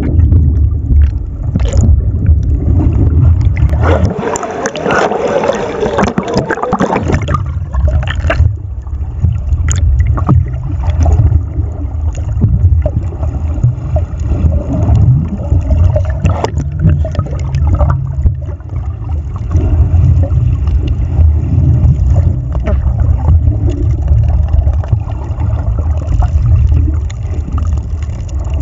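Muffled underwater sound picked up by a submerged camera: a steady low rumble with gurgling water, with more churning in the first several seconds and a few sharp clicks later.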